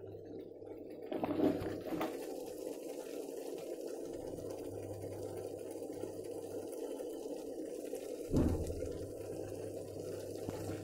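Steady rushing water noise, with two short knocks, one about a second in and one about eight seconds in.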